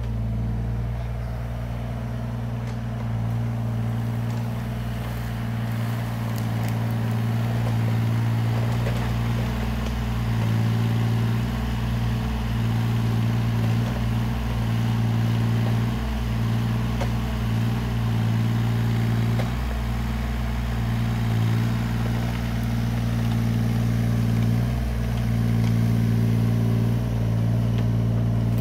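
Yanmar Vio17 mini excavator's small three-cylinder diesel engine running steadily at working speed, with small dips in level now and then.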